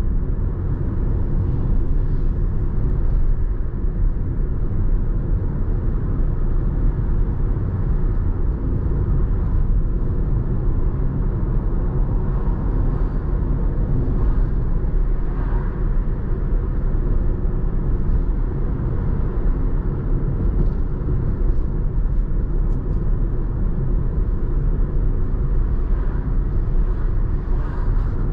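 Steady low rumble of a car driving along a road: tyre and engine noise, with a slight swell about halfway through.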